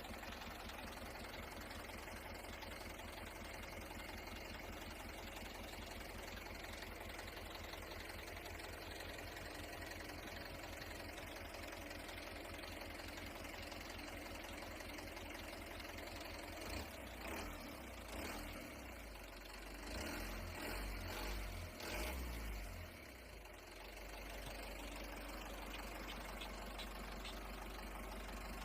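Truck engine idling with a steady low pulsing, growing uneven and briefly louder between about seventeen and twenty-three seconds in.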